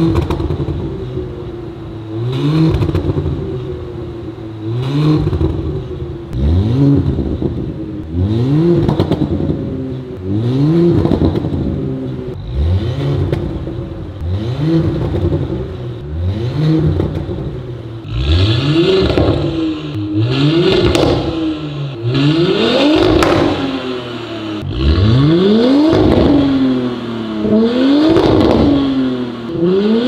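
Porsche Cayenne E3 3.0T's turbocharged 3.0-litre V6 revved repeatedly while standing still, through an ARMYTRIX valvetronic exhaust with decatted downpipe. Short blips about every two seconds, each rising and falling back. From about halfway on they climb higher and sound brighter.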